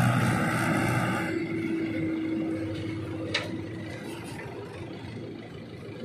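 Swaraj tractor's diesel engine running steadily as it pulls a loaded trolley away, its sound fading as it moves off. A short high squeak about halfway through.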